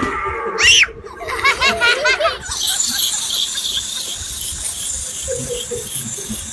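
A child's crying wail that glides up and down in pitch, then a short run of laughter. After that a steady high whirring hiss with faint regular ticks, from a small wind-up toy walking across a high-chair tray.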